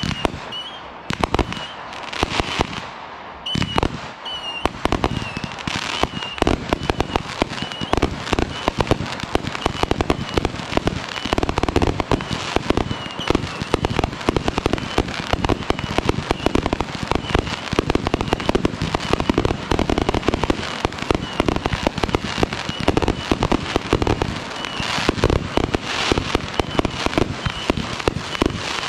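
Fireworks firing in a continuous rapid barrage of bangs, pops and crackles as shells are launched from ground tubes and burst overhead. The barrage is a little sparser for the first few seconds, then thickens into near-constant crackling.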